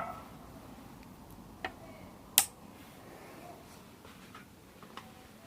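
A few light clicks and taps of small parts of an airsoft M4 inner barrel and hop-up unit being handled while the clamp is fitted, with one sharper click about two and a half seconds in.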